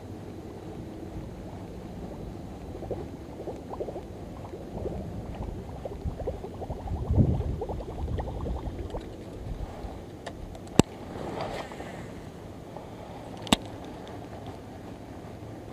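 Wind on the microphone with rustling and handling noise, swelling to a louder low rush about seven seconds in, then two sharp clicks near the end.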